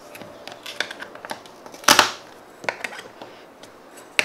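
Small plastic slime tubs and their yellow plastic rims being handled and set down on a table: scattered light plastic clicks and taps, with one louder knock about two seconds in and a sharp click near the end.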